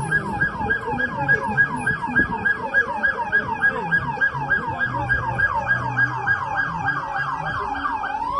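Emergency vehicle siren in fast yelp mode: a falling sweep repeated about four times a second. Right at the end it switches to a slow rising wail.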